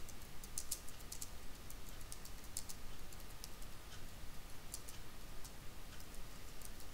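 Computer keyboard keys clicking as a short line of text is typed: a quick run of keystrokes over the first few seconds, then a few scattered ones.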